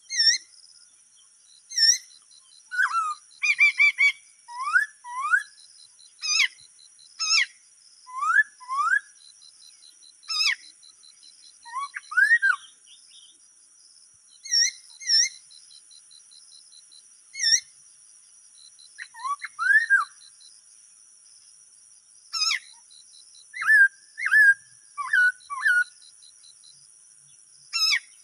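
A bird calling in short whistled notes, many of them quick rising slurs, singly or in twos and threes every second or two. A steady high insect buzz runs underneath.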